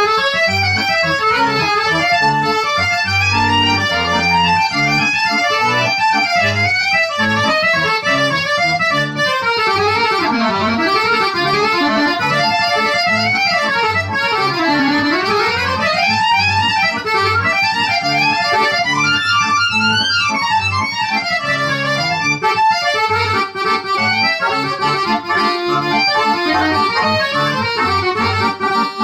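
Accordion duet on two accordions, one a Roland digital accordion, playing a fast instrumental tune. The melody has quick runs sweeping down and back up, over a steady pulsing bass-and-chord accompaniment.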